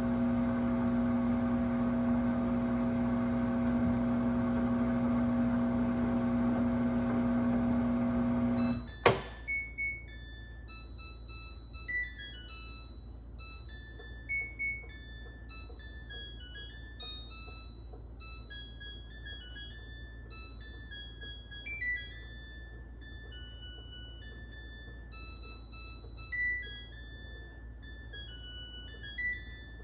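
Samsung WW25B6900AW front-load washer making its loud, steady buzz, the noise it makes when there is no water left to drain. The buzz cuts off about nine seconds in with a click. The washer then plays a melody of high electronic beeps.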